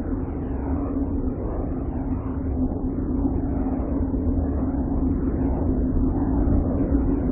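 Voyager spacecraft plasma-wave recordings played as sound: a steady low hum over a rough rumble, with quick overlapping sweeps rising and falling above it, slowly growing louder.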